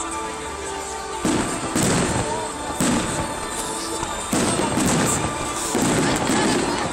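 Fireworks going off: a run of loud bangs and crackling bursts starting about a second in, over music playing in the background.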